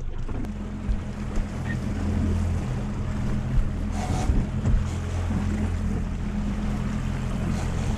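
Suzuki 140 outboard motor running steadily with the boat under way, over the wash of sea water along the hull and wind on the microphone.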